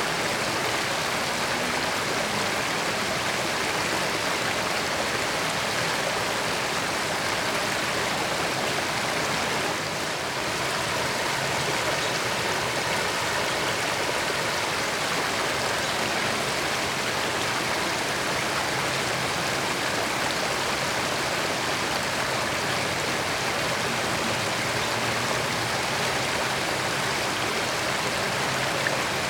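Creek water running steadily over rocks, an even rushing babble without breaks.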